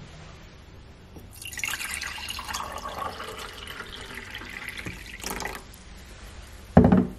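Tap water running into a sink for about four seconds, then stopping; a single loud thump near the end.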